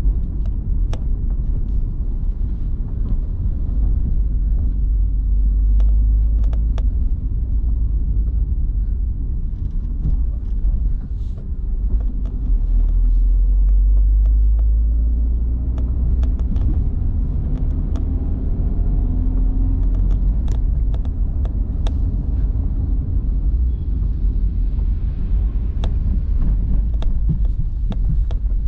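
A car driving, heard from inside the cabin: a steady low rumble of road and engine noise with scattered short knocks and rattles. The engine note rises a few times partway through as the car picks up speed.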